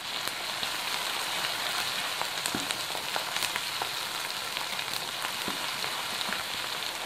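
Chopped onions sizzling in hot mustard oil in an aluminium karahi, a steady frying hiss with scattered small crackles.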